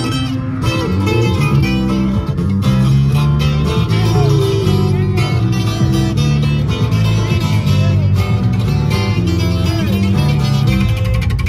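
Live band playing: an acoustic guitar picked and strummed over an electric bass and a plucked upright double bass.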